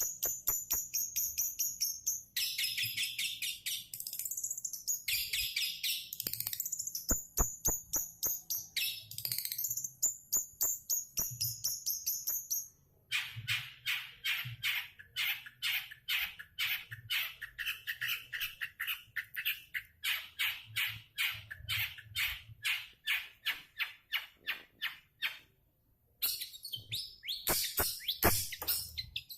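Long-tailed shrike (cendet) singing: high, chattering phrases, then a long run of sharp repeated notes at about three a second, broken by short pauses about halfway through and near the end.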